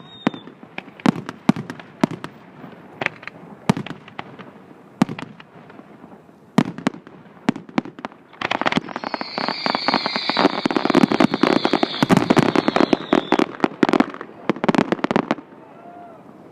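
Fireworks exploding: separate sharp bangs about once a second, then about halfway through a dense barrage of rapid bangs with a high whistle that falls slightly in pitch, stopping shortly before the end.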